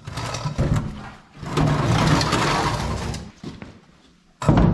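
Rusted pickup fuel tank being slid out from under the truck: rough scraping and handling clatter, with one sharp knock near the end.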